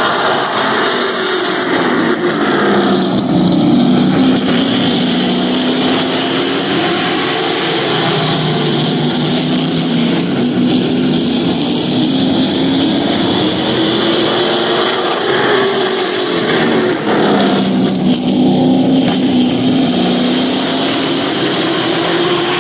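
Several race trucks running laps on a short oval, the engines rising and falling in pitch as the pack goes around the turns and passes by, loud throughout.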